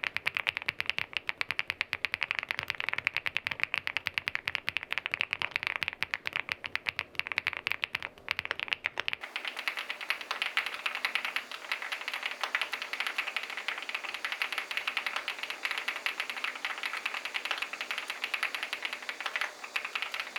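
Fast typing on an SPM Joyakdol 75 aluminium custom mechanical keyboard with SPM Jelly switches: a dense, unbroken run of keystroke clacks. About nine seconds in, the low undertone beneath the clacks drops away and they sound brighter.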